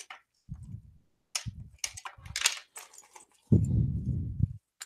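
Hands rummaging through a fabric bag of dongles and cables: a few short bursts of rustling, clinking and dull knocks. The longest and loudest is a low, heavy rustle-and-knock lasting about a second, near the end.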